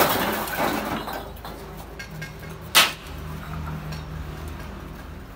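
Steel brick trowel scraping and spreading mortar along the top of a brick wall for about a second and a half. About three seconds in there is a single sharp clink of the trowel against brick.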